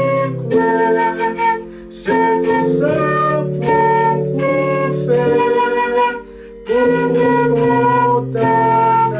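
Concert flute playing a slow melody over sustained accompanying chords, with short breaks between phrases.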